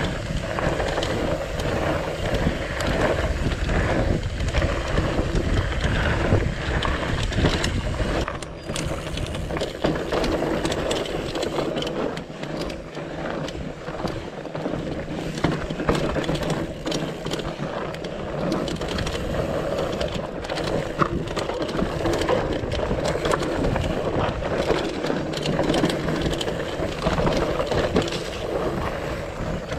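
Mountain bike riding over rocky singletrack: tyres crunching over dirt and rock, with the bike rattling and knocking over the rough ground. A deep rumble drops away about eight seconds in and comes back later.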